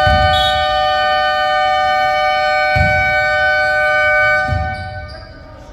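Basketball scoreboard horn sounding one long, steady, loud blast of about five seconds, two pitches together, stopping near the end. Low thuds of a ball bouncing on the court can be heard beneath it.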